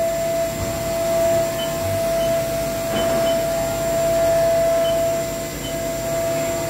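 Haas VF-4SS vertical machining center with its spindle running at a slow 100 RPM: a steady single-tone whine over a low machine hum.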